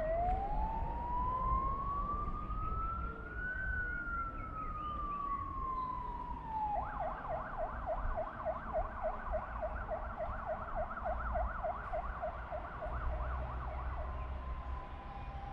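Emergency vehicle siren: one slow wail rising for about three and a half seconds and falling back, then, about halfway through, a switch to a fast yelp sweeping up and down about four times a second, which stops shortly before the end.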